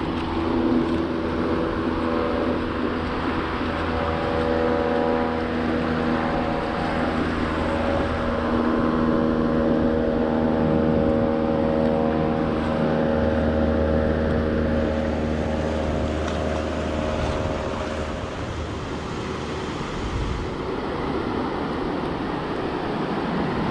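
Surf washing up the beach, with wind on the microphone. Under it runs a steady hum of several held tones, which fades out about eighteen seconds in.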